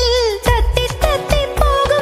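Recorded Malayalam Onam dance song playing: a melody line held with wavering pitch over a steady drum beat and pulsing bass.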